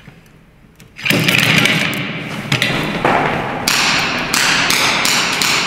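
A sudden scramble about a second in, with chairs and feet scraping and clattering on a concrete floor, then a run of sharp cracks about every half second from an airsoft revolver being fired, echoing in a large hall.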